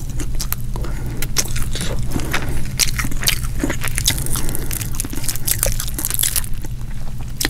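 Close-miked chewing and mouth sounds of eating deep-fried whole striped bass, with irregular sharp clicks as the fried fish is picked apart by hand and chewed. A steady low hum runs underneath.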